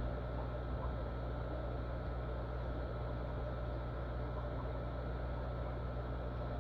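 Steady low hum with a light hiss, from running aquarium equipment.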